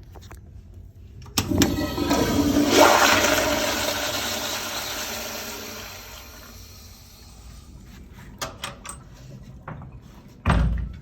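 Crane Whirlton toilet flushing: a sudden rush of water starts about a second and a half in, peaks, then fades away over about five seconds. A few light clicks follow, and a loud thump near the end.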